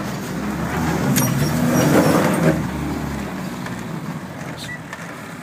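Land Rover Defender 90's diesel engine running as the truck drives over a rough dirt track, heard from inside the cab. The engine note swells to a peak about two seconds in, then eases off and fades, with a sharp knock about a second in.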